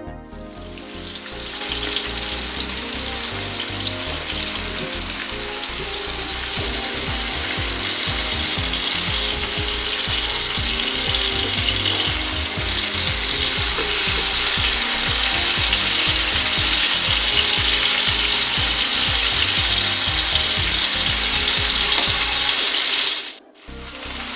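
Chicken breast fillets sizzling steadily as they pan-fry in olive oil and butter, the sizzle swelling over the first two seconds and cutting out briefly near the end.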